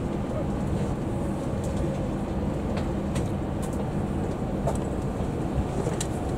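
Steady low rumble of a Shinkansen bullet train heard from inside the passenger cabin, with a few faint, light ticks over it.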